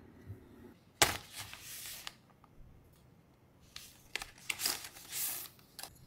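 Hands handling keyboard parts: a sharp knock about a second in, the loudest sound, followed by about a second of rustling. Then, in the second half, come several light clicks and more rustling.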